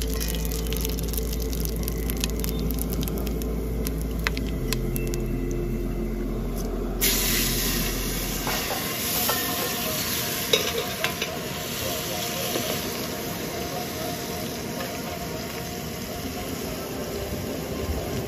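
Large steel pot of water boiling on a gas stove, with a steady hiss and bubbling that turns suddenly louder and brighter about seven seconds in. A few sharp clinks of a steel ladle and bowl against the pot come as ingredients are poured in and stirred.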